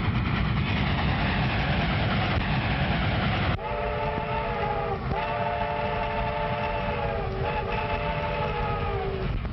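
A train rumbling along, then, after an abrupt cut about three and a half seconds in, a train's chord whistle blowing several notes together in three blasts, the last one long and sagging in pitch as it dies away.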